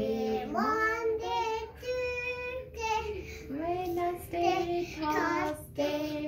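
A young girl singing in a high child's voice, a string of held notes that slide up and down with short breaks between phrases.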